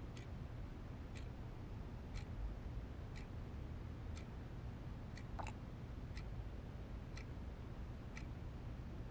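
Clock ticking steadily, about once a second, with one extra click about five and a half seconds in, over a low background hum.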